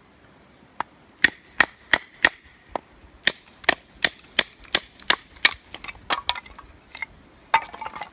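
A run of sharp strikes, about three a second, starting about a second in. The first few strikes carry a brief ring.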